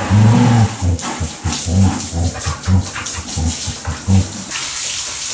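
Border collie making a string of short, low grumbling sounds while its muddy paws are washed, followed from about four and a half seconds in by the steady hiss of a hand shower spraying water.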